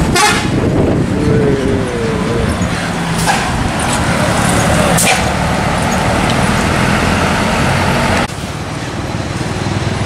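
Large tour coach's engine running as it rounds a bend close by, with a short horn note about a second in and brief hisses. The vehicle noise drops suddenly near the end.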